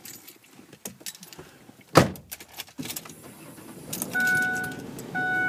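Keys jangling and small clicks, then a car door shutting with one heavy thud about two seconds in. After that the car starts up, and short steady tones come in near the end.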